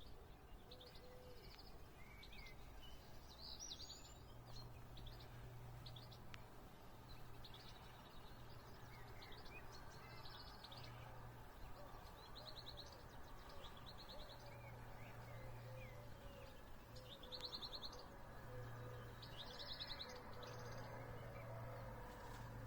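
Faint dawn birdsong: several birds singing short, rapid trilled phrases one after another, overlapping now and then. A low hum comes and goes underneath.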